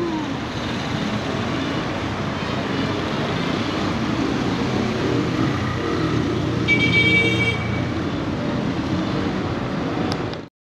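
Street ambience: steady traffic and crowd noise, with a brief high-pitched horn toot about seven seconds in. The sound cuts off suddenly near the end.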